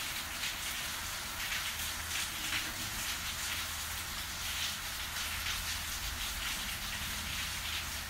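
Steady thunderstorm rain, with many close drops splashing through it and a low steady rumble underneath.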